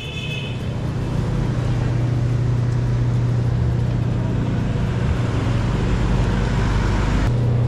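Street traffic noise with a motor vehicle's engine running: a steady low drone under a broad rush of traffic that builds over several seconds and drops off suddenly near the end.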